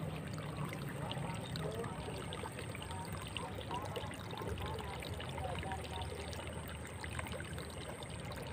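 Shallow water trickling and running steadily.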